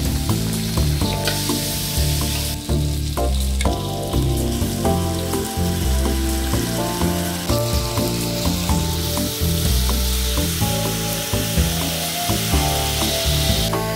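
Onions, chillies and garlic sizzling in hot oil in a wok, a steady frying hiss that grows stronger near the end. Background music with a steady beat and bass line plays over it.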